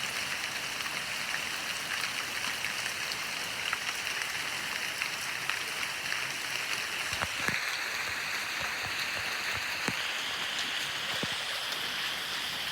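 Heavy rain falling steadily: a dense, even hiss, with single drops ticking sharply here and there.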